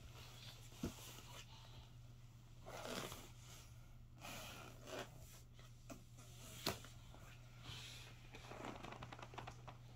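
Quiet room tone with a steady low hum, faint rustling and a few soft clicks.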